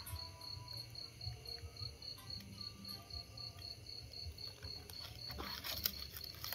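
Insects chirping at night: a steady, high, evenly pulsed chirp about four times a second, over a low rumble. A few clicks and rustles near the end.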